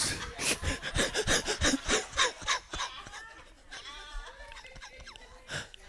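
Laughter at a joke: a run of quick ha-ha pulses for the first two to three seconds, dying down to faint voices.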